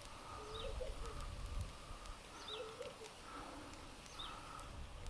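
Faint birds calling in the background, one repeating a short, sharp chirp roughly once a second, with other softer, lower calls in between.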